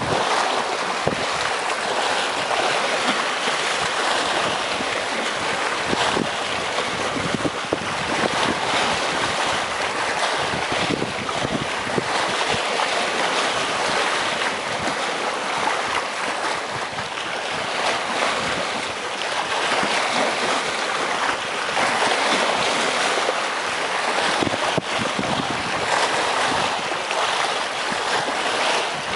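Sea waves washing and splashing against breakwater rocks, a continuous surging rush that swells and eases every few seconds.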